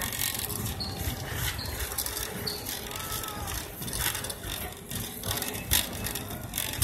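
Wire shopping cart rolling across a store floor, its metal basket and wheels rattling continuously over a low rumble, with a sharper knock near the end.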